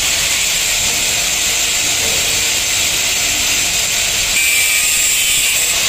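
Electric angle grinder with a thin cutting disc running at speed, cutting through a galvanised steel chain: a loud, steady hiss and whine that holds an even level throughout.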